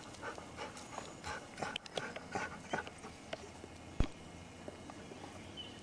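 Dog sniffing close up, with several short, soft whines and one sharp click about four seconds in.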